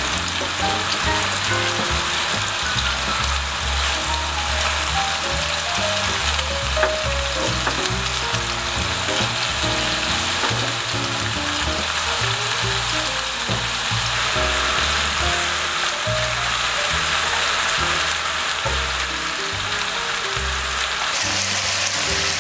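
Thin slices of beef brisket, with garlic and water parsley stems, sizzling steadily as they fry in a nonstick pan. Background music plays under the sizzle.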